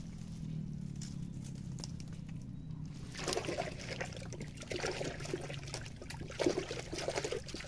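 Wet mud and water squelching and sloshing in irregular bursts, starting about three seconds in, as mangrove clams are dug out of the mud by hand. A steady low hum runs underneath.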